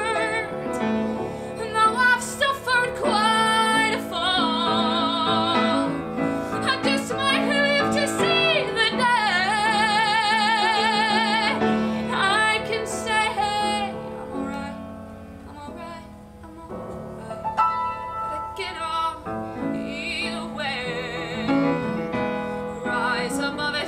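Female singer holding long notes with strong vibrato over piano accompaniment. The music softens for a few seconds a little past the middle, then the voice comes back in.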